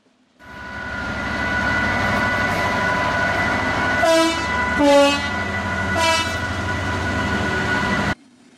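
A Class 60 diesel locomotive passing close on a freight train, its engine running loud with a steady whine, and sounding its horn in three short blasts, the second on a lower note. The sound cuts off suddenly near the end.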